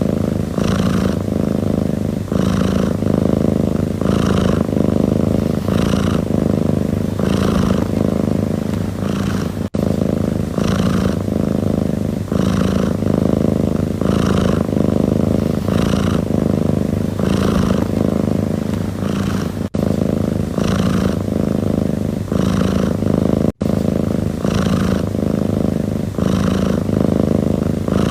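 Domestic cat purring: a steady low rumble that swells and eases with each breath in a regular rhythm, about every three-quarters of a second. The sound cuts out for an instant three times.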